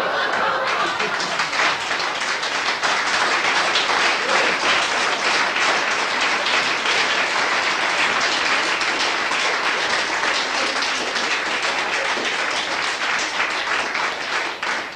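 Audience applauding: dense clapping that breaks out suddenly and tapers off near the end.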